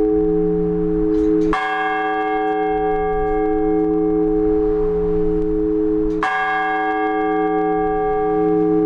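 Large Orthodox church bell struck in slow, measured single strokes, as in the blagovest, the ringing that calls people to a service. Two strokes fall about five seconds apart, and each one hums on steadily until the next.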